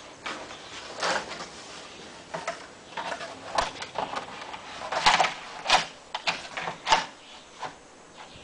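Long vinyl siding panel clattering and flexing as it is lifted and fitted to the wall, with a run of sharp plastic clicks and snaps as it is pressed into the lock of the course below, loudest over a couple of seconds past the middle.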